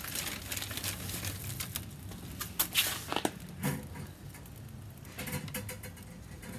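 Scattered soft taps and rustles as a rack of raw pork back ribs is handled and laid onto a kamado's metal grill grate.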